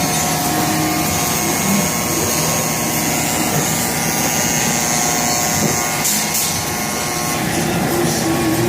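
Industrial machine running steadily, a constant mechanical noise with several steady tones held through it.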